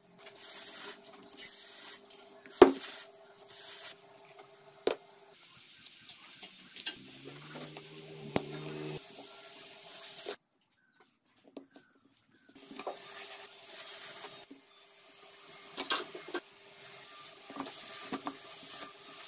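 Small metal engine parts clinking, scraping and knocking as gears and the gearshift mechanism are taken out of an opened Yamaha Serow 225 crankcase half, with one sharp knock about three seconds in. It falls silent for about two seconds midway.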